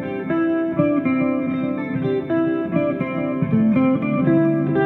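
Les Paul-style electric guitar (Vintage V100) played through a DigiTech GNX3 custom distortion patch into a Hughes & Kettner Attax amp: a picked melodic line of single notes about two a second, with a low note ringing under them near the end.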